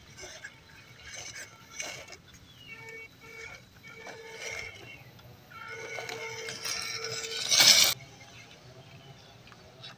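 Small RC rock crawler driving over dry leaf litter and a tree root: irregular crackling and crunching of leaves and twigs under its tyres, with a loud burst of crackling about seven and a half seconds in.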